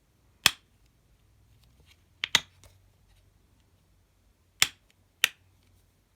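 Five sharp, short clicks over near silence: one, then a quick pair, then two more spaced about half a second apart.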